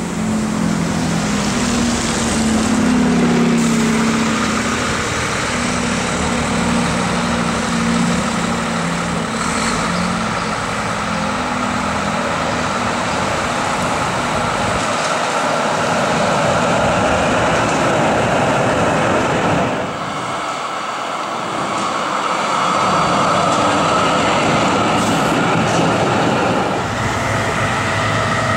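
Trams rolling on street track amid road traffic. First comes an Oslo SL79 tram, with a low engine hum from traffic in the first several seconds. After a break about twenty seconds in, an SL95 tram approaches with a thin steady whine that grows stronger near the end.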